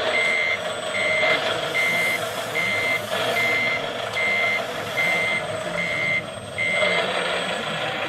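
Reversing alarm of a scale RC truck's sound module: nine short, evenly spaced beeps, a little more than one a second, over a steady hum, stopping near the end.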